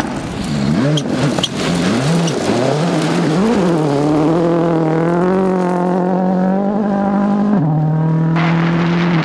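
Ford Focus WRC rally car's turbocharged four-cylinder engine revving hard on loose gravel. The revs rise and fall quickly through the first few seconds, with a couple of sharp cracks about a second in, then hold high and steady before dropping suddenly near the end.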